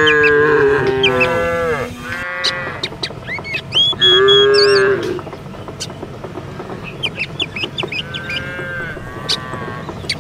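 Cattle mooing: a long drawn-out moo at the start, then shorter moos, the loudest about four seconds in and a fainter one near the end. Short high bird chirps sound between the calls.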